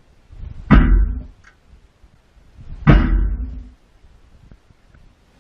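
Two heavy thumps about two seconds apart, each a sudden hit followed by a short low rumble.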